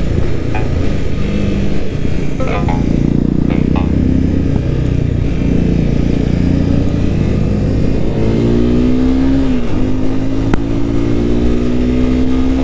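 Motorcycle engine accelerating over a steady low rumble. Its pitch climbs, drops sharply once as the rider shifts up a gear, then climbs again.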